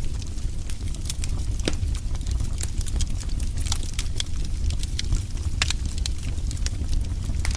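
Fire burning in a fireplace, crackling with irregular sharp pops over a steady low rumble.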